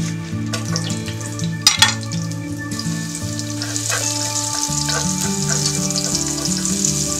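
Sliced shallots tipped into hot oil in a nonstick frying pan: two sharp knocks about two seconds in, then the oil starts sizzling and keeps frying steadily as chopsticks stir the shallots. Background music plays underneath.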